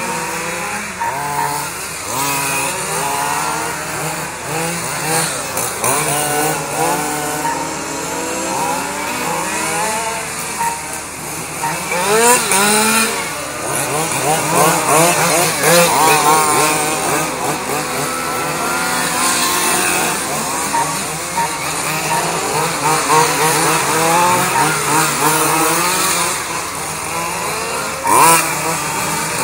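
Several quarter-scale RC race cars' Zenoah 270RC two-stroke petrol engines buzzing as they race through the corner, their pitches rising and falling with the throttle and overlapping. The engines are loudest as cars pass close, about twelve seconds in and again near the end.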